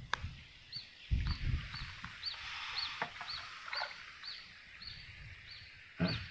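A bird repeating a short, high note about twice a second. Bursts of low rumble on the microphone come near the start, about a second in, and near the end.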